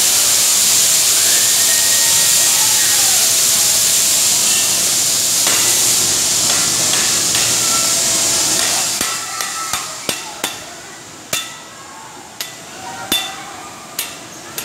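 A loud hiss of compressed air venting from the airplane ride's pneumatic system as the ride stops. It starts suddenly, lasts about nine seconds and then dies away. After it comes a string of sharp clacks and knocks as riders climb off the seats.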